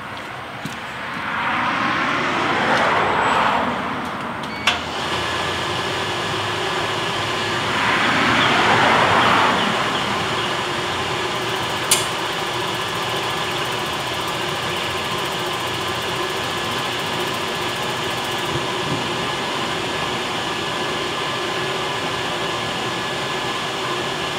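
Bideli 2 kg propane drum coffee roaster running as it preheats. There are two swells of rushing noise in the first ten seconds and a click about five seconds in. After the click a steady whir with a fixed hum carries on, with another click at about twelve seconds.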